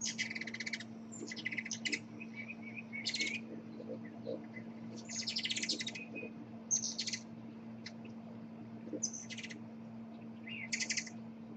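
Hummingbird chattering: about seven short bursts of rapid, high-pitched twittering, each half a second to a second long. A steady low hum runs underneath.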